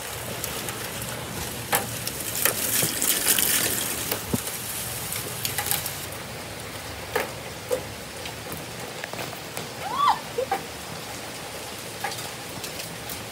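Steady rain falling, heard as an even hiss with scattered sharp taps of drops and knocks close to the microphone, heaviest a few seconds in. A short high sound rises and falls about ten seconds in.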